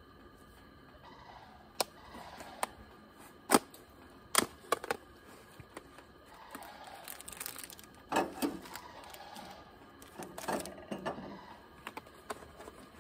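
Clicks, knocks and rustling from handling camp-kitchen things: a run of sharp knocks in the first five seconds, the loudest about three and a half seconds in, then crinkling of a plastic food container and its lid.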